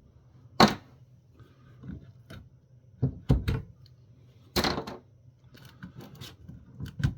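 Irregular sharp clicks and knocks, about half a dozen, as internal cable connectors are unplugged and the heavy metal chassis of a wireless microphone base station is handled.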